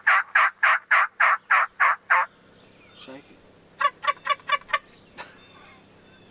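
Hen turkey yelps on a mouth call, an even run of about three yelps a second that stops a little over two seconds in. Near four seconds in, a shaken gobble tube call gives a short, quick gobbling rattle of about six notes.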